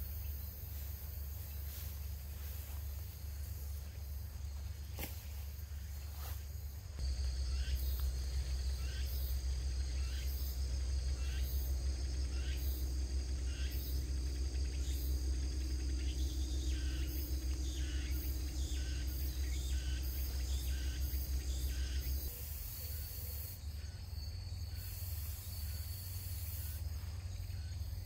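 Summer insects buzzing steadily, with a low rumble underneath. About seven seconds in a louder, rapidly pulsing insect call joins for roughly fifteen seconds, then drops away.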